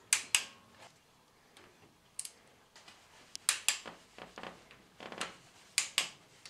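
Torque wrench clicking as the cam cover bolts are brought to their final 10 Nm: sharp metal clicks, mostly in pairs a fraction of a second apart, heard several times.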